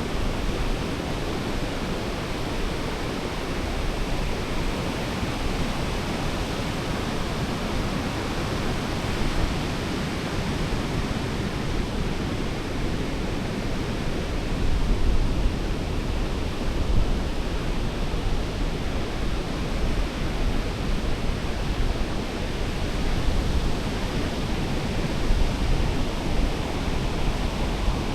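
Steady rush of surf on a beach, with wind buffeting the microphone in uneven low rumbles.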